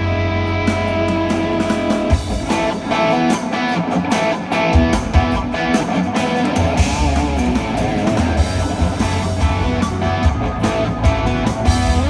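Rock band playing a song live, with the electric guitar louder than the rest of the band. Sharp hits run through it over a steady low bass line.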